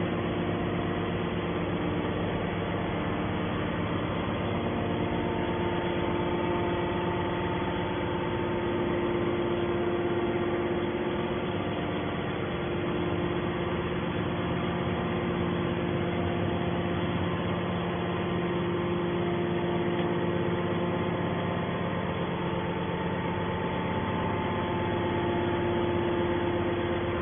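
Hydraulic scrap-metal baler running, its motor and hydraulic pump giving a steady hum with little change.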